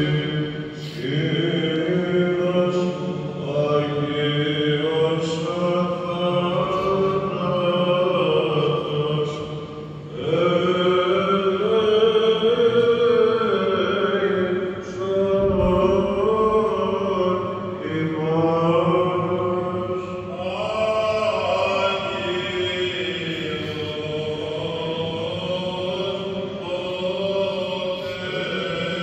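Slow vocal chant in long gliding phrases over a low held note.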